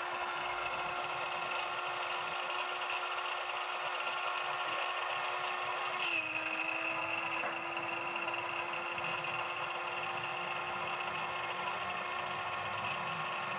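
Electric cut-off saw with an abrasive disc, its motor running steadily with a continuous whine. There is a short break about six seconds in, after which the whine sits a little lower.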